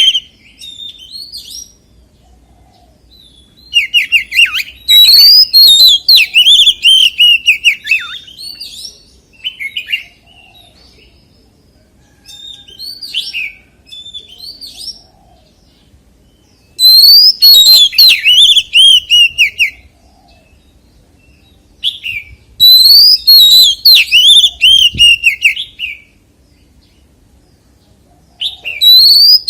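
Oriental magpie-robin singing: loud bouts of varied, fast-gliding whistled phrases a few seconds long, separated by short pauses and a few softer phrases.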